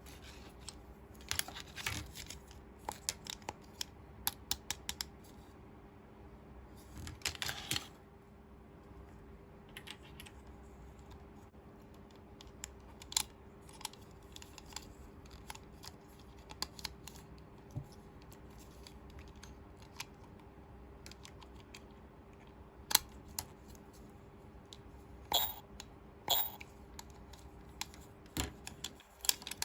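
Irregular light clicks and taps of small plastic toy pieces being handled and set down, with a couple of brief rustles of packaging, over a faint steady hum.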